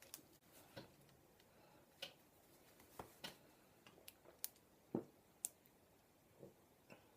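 Near silence with about a dozen faint, short clicks and taps at uneven intervals, the sharpest a little before the middle and about two-thirds of the way through.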